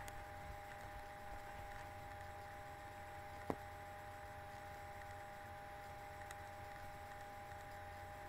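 Steady low hum and hiss with a faint steady whine, broken once by a single sharp click about three and a half seconds in.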